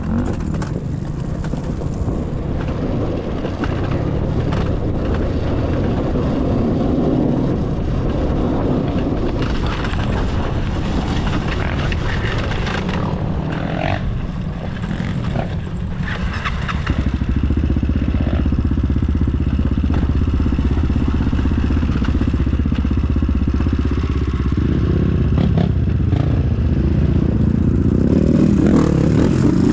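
Trail motorcycle engine running steadily while ridden, growing louder a little over halfway through.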